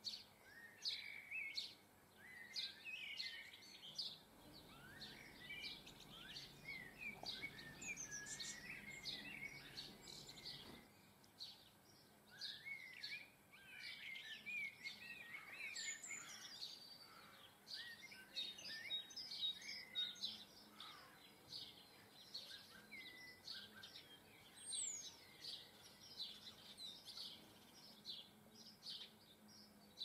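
Garden songbirds chirping and singing, many short calls and warbled phrases overlapping, with a faint low rumble from about four to eleven seconds in.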